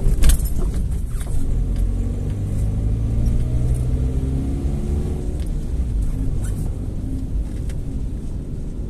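Car driving on a wet city street, heard from inside the cabin: steady low engine hum with tyre noise from the wet road. A couple of sharp knocks come just after the start.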